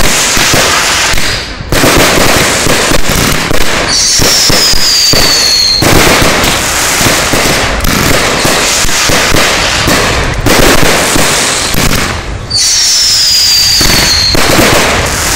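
Aerial fireworks going off loudly in quick succession: dense crackling and popping from bursting shells, with a falling whistle about four seconds in and another at about twelve and a half seconds.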